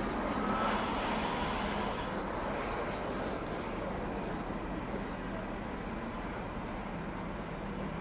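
Jet aircraft engines running at low power: a steady rumble with a constant hum, and a brief rise of hiss about a second in.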